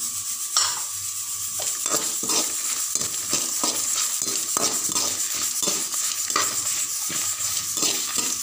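Slotted steel spoon scraping and knocking against a steel pot, irregularly, while stirring dried red chillies and whole spices (pepper, cumin, fennel) as they dry-roast, over a steady sizzling hiss.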